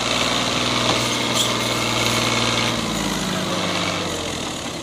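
Ghazi tractor's diesel engine running under load as it pulls a trolley heavily loaded with sugarcane. Its pitch drops and it gets quieter about three seconds in.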